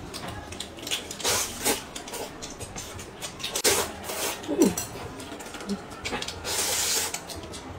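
Eating sounds: noodles slurped from a bowl of soup and grilled sausage chewed. There are several short hissing slurps and a longer slurp about six and a half seconds in.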